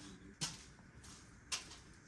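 Two short, light knocks, about a second apart, from parts being handled while a dust-collection hose is hooked up to a miter saw.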